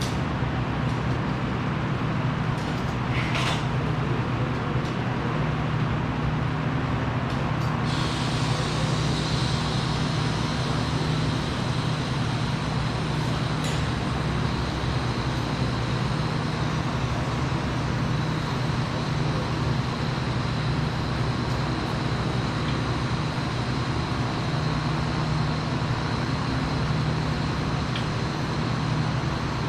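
Steady machinery hum in a welding and fabrication shop, with a high, even whine that joins about eight seconds in and holds.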